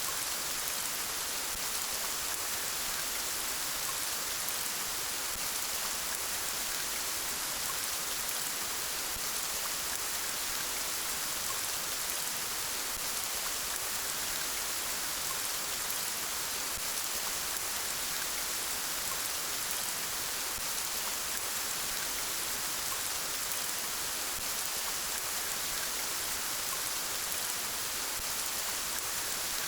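Steady rainfall: an even hiss of rain falling on a surface, with no let-up.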